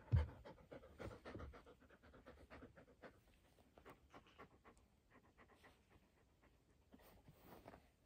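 Goldendoodle puppy panting and snuffling close by in quick short breaths, with a dull thump just after the start.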